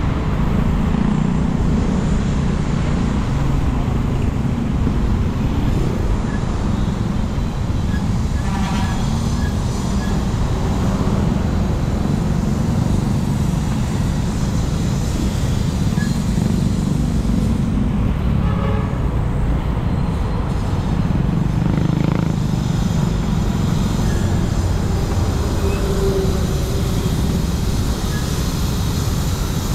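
Motorcycle ride in slow, dense city traffic: the engines of the rider's bike and the surrounding motorcycles and trucks make a steady low rumble. A brief higher pitched sound cuts through twice, about nine and nineteen seconds in.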